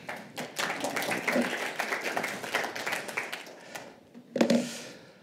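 Audience applauding, a dense patter of many hands clapping that dies away about four seconds in. A short, louder low sound follows near the end.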